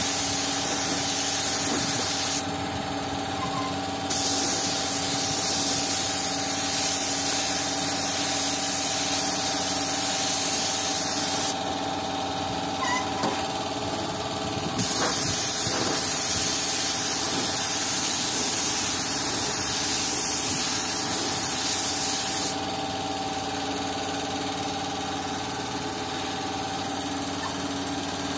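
Gravity-feed paint spray gun spraying black paint onto a motorcycle fuel tank: a loud air hiss in three long passes with short pauses between, stopping about three-quarters through. A steady hum runs underneath throughout.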